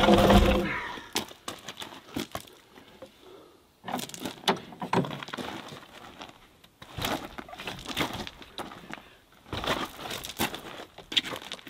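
Hi-Lift farm jack clacking as its handle is pumped under load, raising one skid of a heavy timber shed. The clatter of its climbing pins comes in bursts every couple of seconds.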